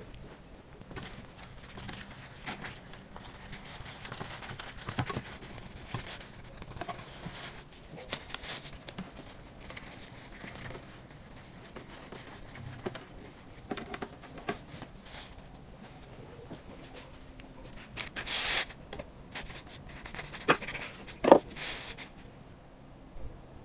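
Close-up handling sounds of a filled lavash shawarma wrap being rolled on a wooden table: soft rustling and rubbing of the flatbread, with a louder crackling rasp about three quarters of the way through and a sharp knock near the end.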